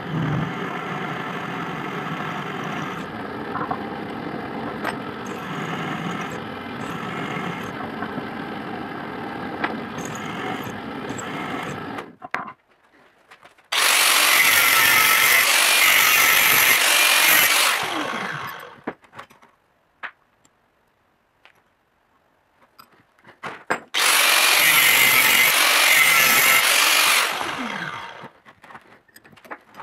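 Drill press motor running steadily as its bit bores into a steel block held in a small vise. After a pause, an angle grinder twice grinds steel parts in the vise jaws for a few seconds at a time, winding down after each run. A few light metal clicks follow near the end.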